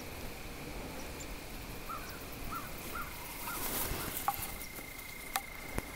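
Outdoor field ambience: insects trilling steadily on one high note, and a bird giving a run of about five short chirps about two seconds in. A couple of sharp clicks near the end.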